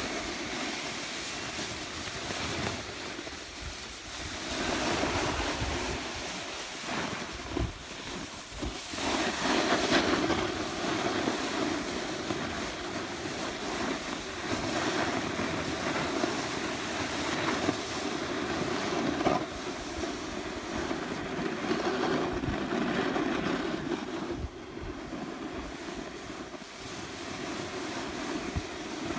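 Snow hissing and scraping under a rider sliding down a ski slope, with wind buffeting the microphone. The sound swells and fades in waves, loudest about a third of the way in.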